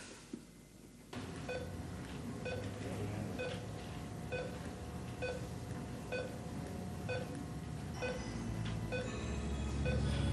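Patient heart monitor beeping steadily, a short beep a little faster than once a second, over a low hum that grows louder near the end.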